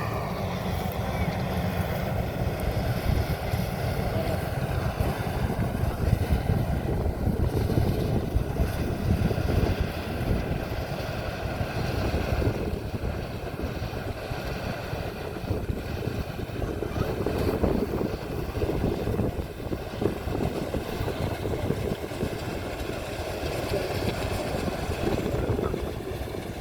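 Maxxi Bimo 102 combine harvester running steadily while harvesting rice: a dense, unbroken engine and machinery noise with a faint steady whine above it.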